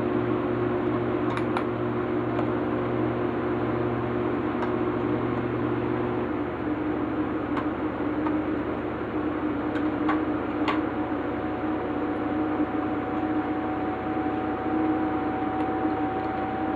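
Steady machine hum whose lower tones change about six seconds in, with a few faint light clicks scattered through.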